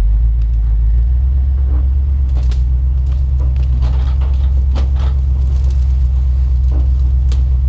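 Badger 6x6 off-road vehicle driving steadily, its engine giving a continuous low drone, with scattered clicks and knocks over it.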